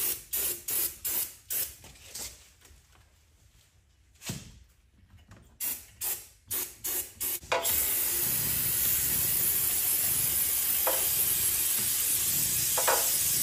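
Aerosol brake cleaner spraying into an open differential housing to flush grime from the gears. It starts as a string of short hissing bursts, then from a little past halfway it becomes one long continuous spray.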